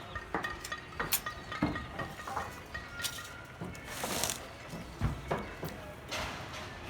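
Irregular light metallic clinks and knocks, some ringing briefly, from steel reinforcing bars being handled and worked on a rebar cage.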